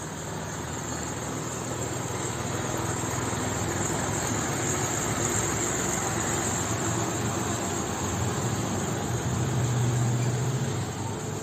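A steady engine-like rumble with a low hum, slowly growing louder and peaking about ten seconds in before easing off.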